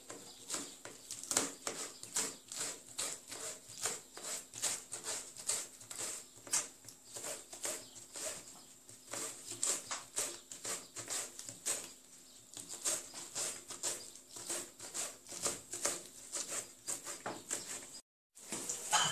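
Knife slicing sivri green peppers on a perforated plastic tray: a long, irregular run of light, sharp cutting taps, about two to three a second.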